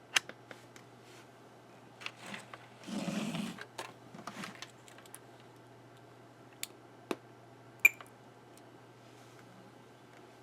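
Scattered clicks and taps like a computer keyboard and mouse, irregular and sparse, with a short noisy burst about three seconds in, over a faint steady hum.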